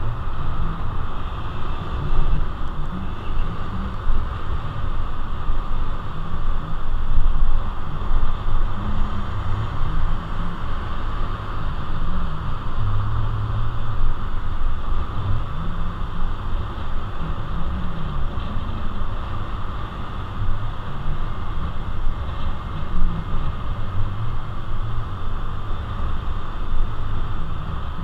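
Honda Navi's small single-cylinder engine running at road speed, its pitch rising and falling with the throttle, over steady wind and road noise.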